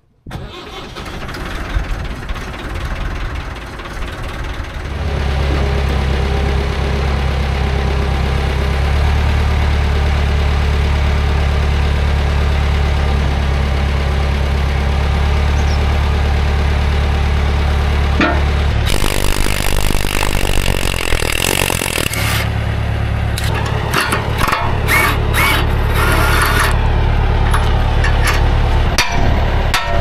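Massey Ferguson 50B backhoe's diesel engine turning over for a few seconds, then catching and running steadily. About two-thirds through there is a spell of hissing, followed by a run of sharp knocks over the running engine.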